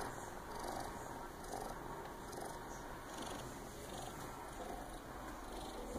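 A cat purring: a faint, steady purr that swells softly with each breath.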